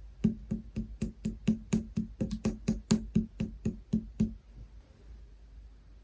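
A run of about fifteen quick, even taps, each with a short hollow ring, as on a small plastic slime container; they stop a little over four seconds in.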